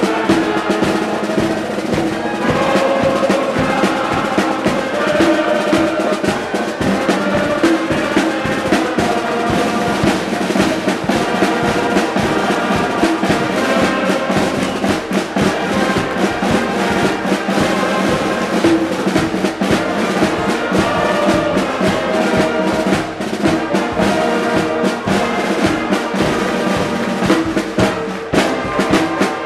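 Brass band playing live, tubas and other brass horns carrying the tune over a steady drum beat.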